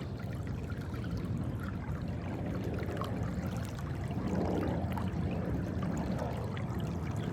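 Water washing and trickling along a kayak's hull as it moves under electric trolling-motor power, over a steady low rumble.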